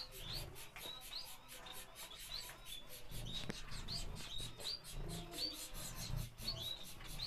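Small exotic finches chirping: short, high, rising chirps repeating a few times a second over a low hum.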